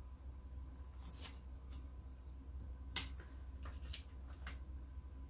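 Faint crackles and ticks of iron-on vinyl being picked and peeled off its carrier sheet with a weeding hook, about half a dozen short ones, the sharpest about three seconds in, over a steady low hum.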